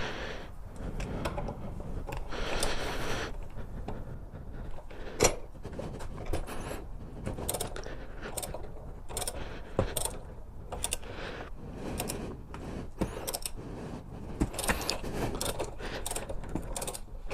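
Metal hand tools clinking and clicking against motorcycle footpeg-bracket parts during repair work, in irregular sharp clicks, with a scraping stretch about two seconds in.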